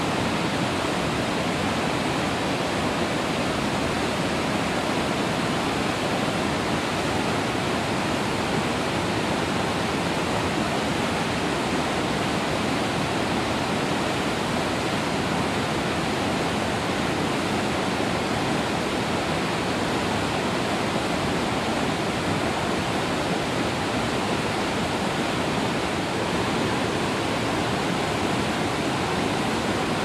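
A broad, low waterfall and its rapids pouring over boulders: a steady, unbroken rush of water.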